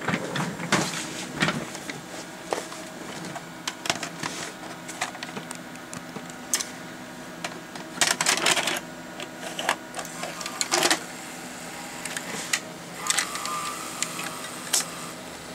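Panasonic AG-7350 S-VHS deck loading a VHS cassette: the loading mechanism runs with motor whirring and repeated clicks and clacks of gears and levers as the cassette is drawn in and the tape is pulled out and wrapped around the spinning head drum. A brief whine comes near the end.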